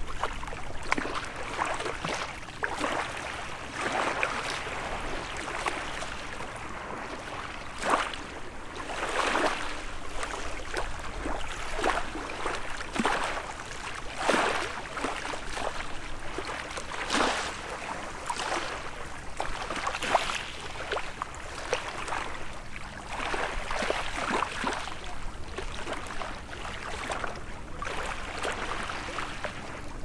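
Small waves on a calm sea lapping and splashing, with irregular soft splashes every second or two and a few sharper slaps.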